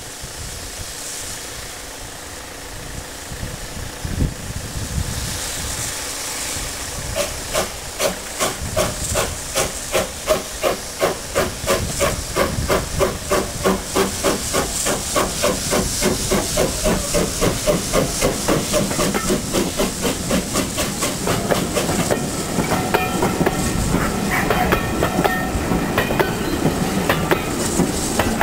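Small steam tank locomotive hissing steam, then pulling away: chuffing exhaust beats start about seven seconds in and quicken as it gathers speed, with wheels clattering over the rail joints near the end.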